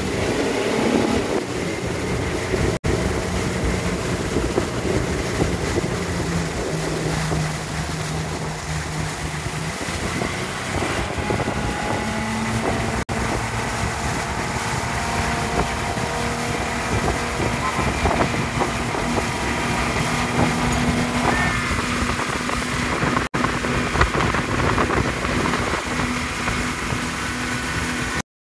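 Fishing boat under way at speed: a steady engine drone with wind buffeting the microphone and the rush of the wake. The sound cuts out for an instant three times.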